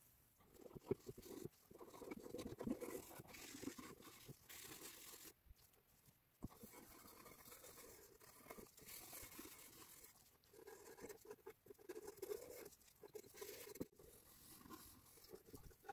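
A brush scrubbing the wooden clock case with water, in quiet, irregular scratching strokes with a brief pause partway through.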